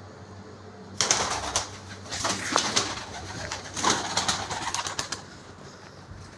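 A bird fluttering and scuffling in a run of noisy bursts from about a second in, lasting about four seconds, then settling.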